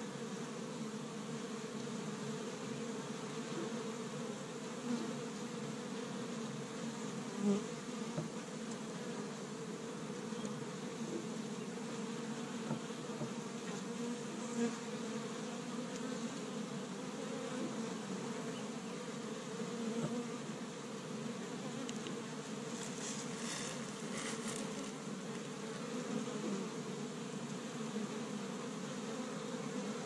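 Honey bees buzzing in flight at a hive entrance: a steady drone of many foragers coming and going, with single bees swelling louder as they pass close by a few times. A few brief high ticks come about three-quarters of the way through.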